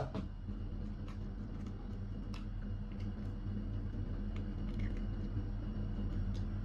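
Faint clicks of an eggshell being cracked and handled while the egg white is separated, over a steady low hum.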